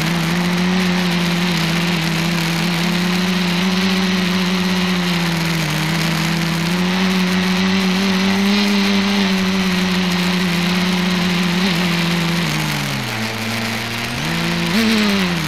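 Electric motors and propellers of a small multicopter droning steadily, heard from the camera on the craft. The pitch shifts with throttle: it drops lower about 13 seconds in, then climbs back up near the end.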